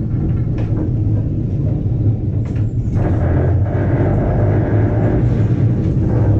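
Vintage electric tram running along street track, heard from inside the car: a steady low rumble of wheels on rail with a few faint clicks, growing fuller about halfway through.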